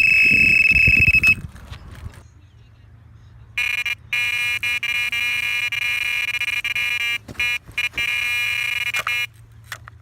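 Electronic carp bite alarm sounding one continuous high tone as a carp takes line on a run, cutting off about a second and a half in. After a short pause, a second bite alarm with a lower, buzzier tone sounds steadily for about five seconds, with a few brief breaks.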